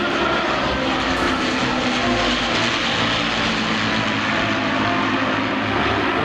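Avro Lancaster's four Rolls-Royce Merlin piston engines and propellers running steadily as the bomber passes in flight, a little stronger around the middle.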